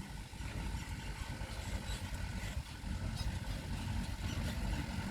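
Diesel engine of heavy earth-moving machinery running at idle, a continuous low rumble.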